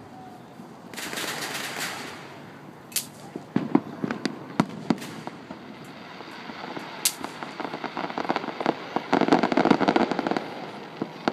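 Aerial fireworks shells bursting with sharp bangs, a hiss about a second in, and a dense run of rapid crackling pops in the last few seconds, the loudest part.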